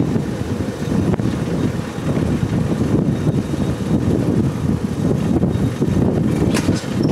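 Wind buffeting the microphone: a loud, steady, rough low rumble.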